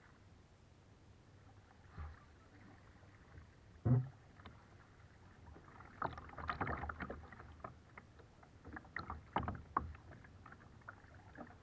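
Kayak paddles dipping and splashing in calm water, with small splashes and drips coming thick from about six seconds in. A single sharp knock sounds about four seconds in.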